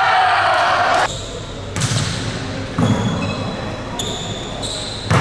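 Volleyball rally in a large indoor hall: a voice calls out in the first second, then the ball is hit sharply twice, about a second apart, with high squeaks of sneakers on the court after the hits.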